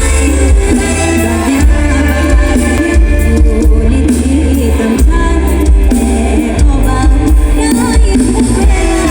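Live concert music played loud: a band with a heavy, pulsing bass beat under a singer's voice.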